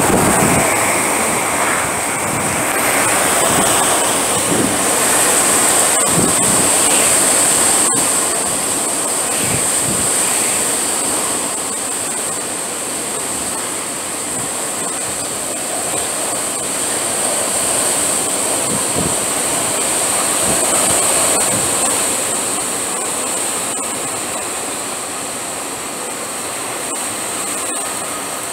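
Hurricane-force wind, with wind-driven rain, a loud steady rush that swells and eases in gusts every few seconds.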